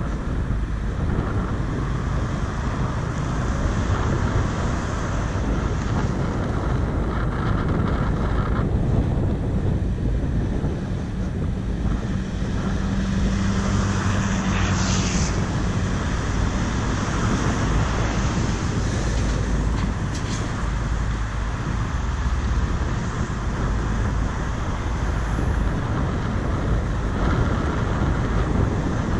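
Steady wind rushing over the microphone of a camera on a moving bicycle, mixed with road traffic noise. About halfway through there is a brief louder hiss.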